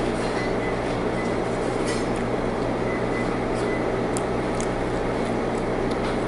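Steady low hum of a small restaurant's background, with a few faint clicks in the second half.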